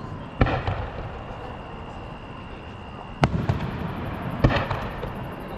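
Aerial fireworks bursting: three sharp bangs, one just after the start, one past the middle and one near the end. The first and last are each followed by a short spatter of smaller crackling pops.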